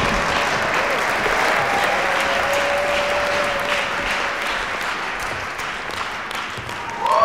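Audience applauding, the clapping slowly dying down; near the end music starts.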